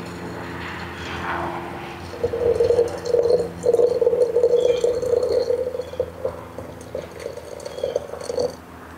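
Boiling water poured from a kettle into a glass teapot. It makes a gurgling splash that starts about two seconds in and stops near the end.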